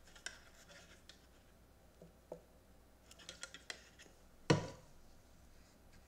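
Faint clicks and light scraping of hand work on an opened laptop, as a plastic bottle of cleaning liquid is handled and a cotton swab is worked on the cooling fan, with one louder knock about four and a half seconds in.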